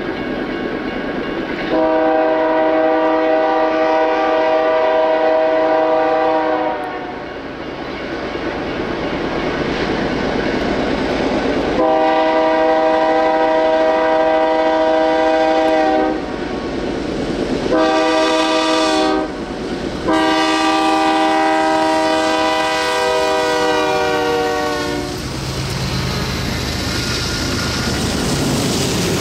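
BNSF freight locomotive's air horn sounding four blasts, long, long, short, long: the standard grade-crossing signal. The last blast drops slightly in pitch at its end. The lead diesel locomotives and stack cars then pass close by with loud, steady engine and wheel noise.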